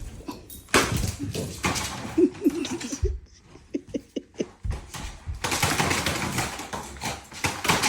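Two dogs play-fighting: scuffling with short dog vocalisations, quieter for a couple of seconds in the middle.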